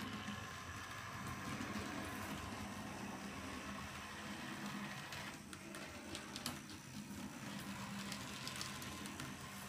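HO scale model streetcars running on DCC-controlled track: a steady motor hum, with a few light clicks of the wheels over the track.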